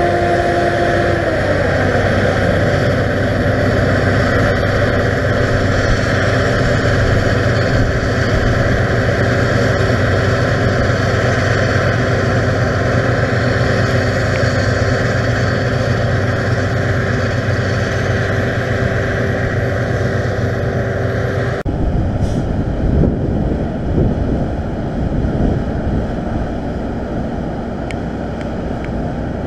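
Claas Lexion combine harvester and a Fendt tractor with a chaser bin working close by while harvesting barley: a loud, steady machine drone, with a whine that falls in pitch about two seconds in. About three-quarters of the way through, the sound cuts abruptly to fainter, more uneven tractor engine noise.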